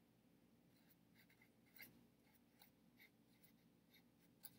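Very faint squeaks and scratches of a marker pen writing on paper on a clipboard, in a few short strokes.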